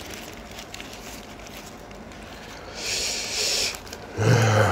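Faint crinkling of a paper food wrapper, then a man's breath drawn in about three seconds in, followed near the end by a short, low voiced murmur, the loudest sound.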